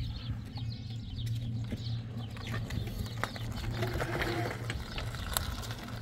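Birds chirping and calling, with a few sharp knocks and a steady low hum underneath.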